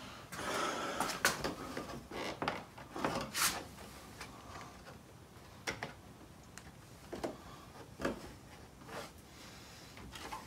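Plastic clicks, knocks and short scraping rubs as hands work the stiff retaining clips of a BMW M2's chrome kidney grille, prising it out of the front bumper.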